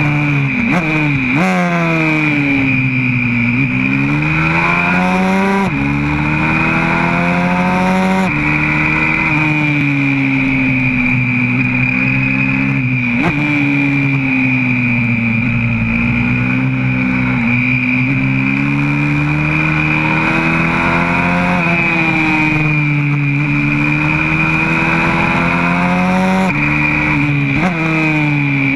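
YCF 125cc four-stroke pit bike engine at hard throttle, heard from a camera mounted on the bike. The revs climb steadily and drop sharply at each upshift, about half a dozen times, and fall away into corners, with a steady high whine over the engine note.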